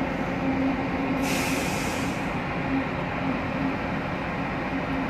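Heavy truck's diesel engine running steadily as the truck rolls slowly, heard from inside the cab, with a low hum held throughout. A hiss starts about a second in and fades after about a second.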